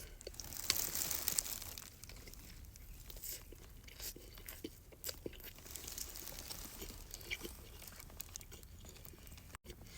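A person biting into and chewing a steak taco close to the microphone: scattered crunches and wet chewing clicks, busiest in the first couple of seconds.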